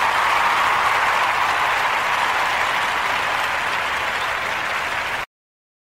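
Applause, a steady clapping noise that cuts off abruptly just over five seconds in.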